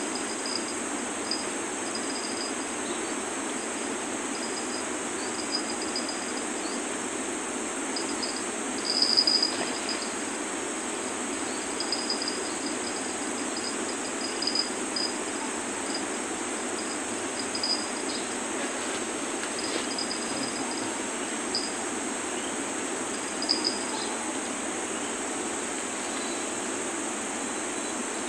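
Forest insects chirping in short, irregular trills, with the loudest burst about nine seconds in, over a steady high insect drone and an even low background rush.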